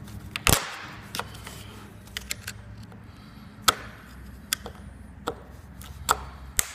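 Flathead screwdriver tip clicking and scraping against the metal staples and metal end cap of a cardboard barbell shipping tube as the staples are pried and flattened. Irregular sharp clicks come about once a second, the loudest just after half a second in and near four seconds.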